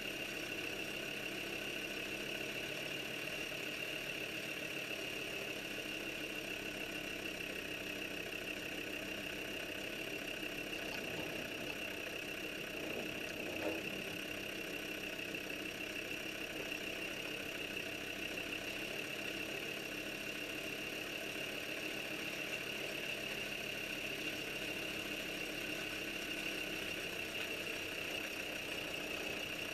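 Land Rover engine running steadily at low speed as the vehicle crawls along a rutted off-road track, heard through a camera mounted on the bonnet. A single light knock comes about halfway through.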